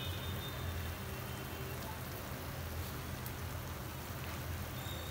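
Steady, even sizzling of bread bites frying in a pan under melting cheese, over a low steady hum.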